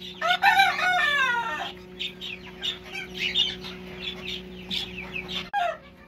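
A rooster crows once, about a second and a half long, then short high bird chirps follow repeatedly, over a steady low hum that cuts off near the end.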